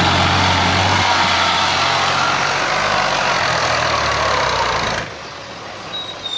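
New Holland Fiat 480 tractor's three-cylinder diesel engine running loudly and steadily as it pulls a trolley loaded with soil. The level drops sharply about five seconds in, leaving the engine quieter.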